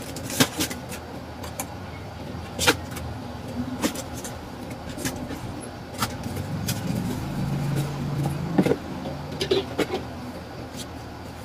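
Foil-wrapped packets, a cardboard box and sheets of paper being handled: scattered sharp crinkles and rustles. A low steady hum swells for about two seconds past the middle.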